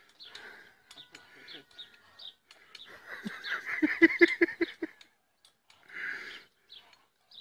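A person laughing in a quick run of about six ha-ha bursts about four seconds in, with shorter, fainter bursts of sound before and after.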